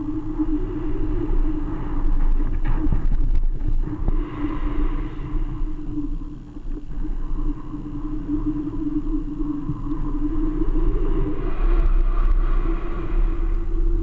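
Wind noise on the microphone of a GoPro sealed in a foam capsule climbing under a weather balloon, over a steady low hum.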